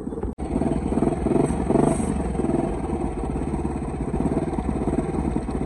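Royal Enfield motorcycle engine running under way, a steady rapid beat from the exhaust, with a momentary dropout just after the start.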